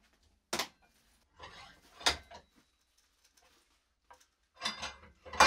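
Metal tools and drill bits being handled on a workbench as the drill's bit is swapped: a handful of sharp clicks and clunks with softer rustling between them, the loudest near the end.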